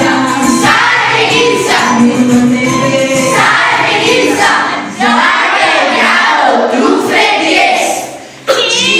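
A children's song playing, with several voices singing together over instrumental backing. The sound dips and cuts back in abruptly about halfway through, and again near the end after a brief fade.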